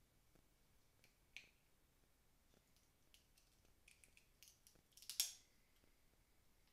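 Shrimp and snow crab shells being peeled and cracked by hand: scattered small clicks, one crack about a second and a half in, and a louder cluster of crackling snaps around five seconds in.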